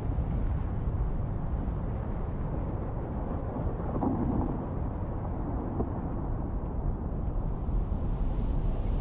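Low, steady rumble of a glacier front calving, as huge blocks of ice break off and collapse.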